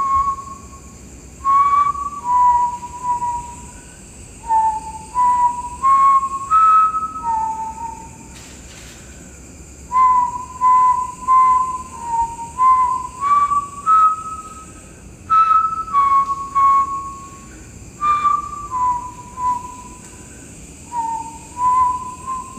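A man whistling a slow tune: short phrases of held notes stepping up and down, with brief pauses between phrases.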